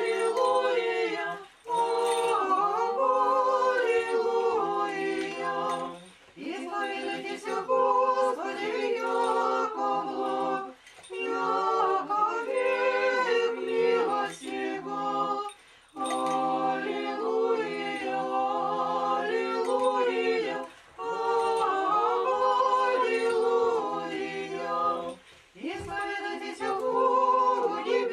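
Small Orthodox church choir singing liturgical chant a cappella, in phrases of a few seconds with brief pauses for breath between them.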